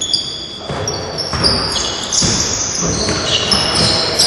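Basketball game on a gym court: sneakers squeaking on the floor and a ball bouncing, over a din of voices that gets louder about a second in.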